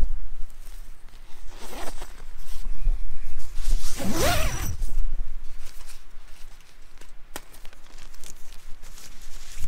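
Tent door zip pulled open in two strokes, about one and a half seconds in and again at about four seconds, the second longer and louder, with a rising rasp.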